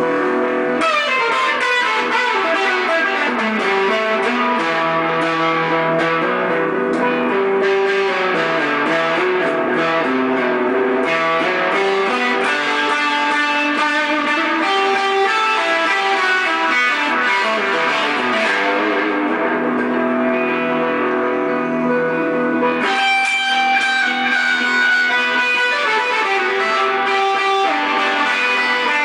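Electric guitar, a 1978 Ibanez PF230 with EMG H2A passive humbucking pickups, played through an amplifier: a run of single-note lines and chords with notes sliding in pitch. About two-thirds of the way through, the low notes drop out and the playing moves higher up the neck.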